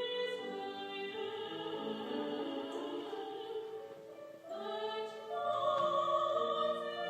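Music with long held, operatic-style sung notes that change pitch in steps, dipping briefly about four seconds in.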